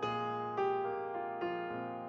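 Background music: a slow keyboard melody of single notes, each struck and left to fade, a new note about every half second to second.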